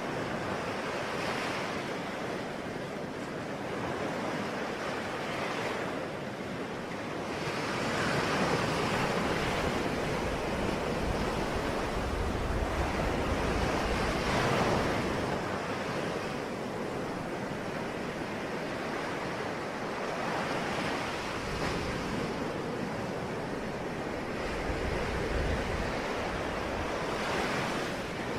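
Ocean waves breaking and washing on the shore, an unbroken rush of surf that swells and fades in slow surges every several seconds.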